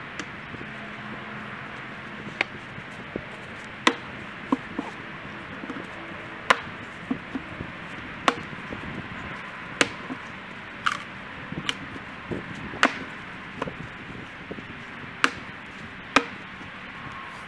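Fiskars X27 splitting axe striking and splitting firewood rounds held in a tire: a series of sharp, irregularly spaced cracks, about fifteen of them.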